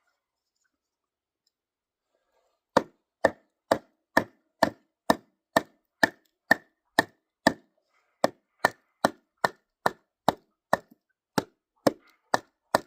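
Hatchet chopping kindling: quick, evenly spaced chops on wood, about two a second, starting about three seconds in after a silence.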